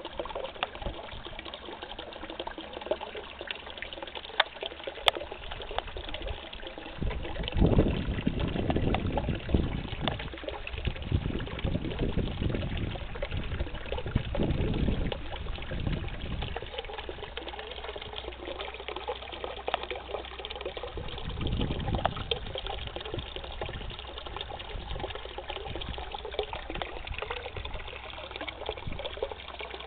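Water steadily trickling and splashing into a garden pond. Low rumbles swell and fade several times in the first half and once more about two-thirds of the way through.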